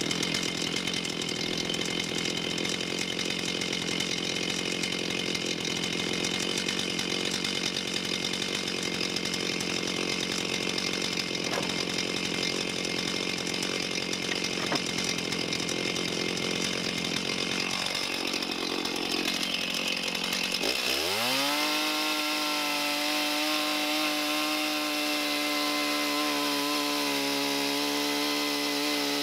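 Gas chainsaw idling with a rapid, even putter, then throttled up about two-thirds of the way through: its pitch climbs quickly and settles into a steady high-speed whine.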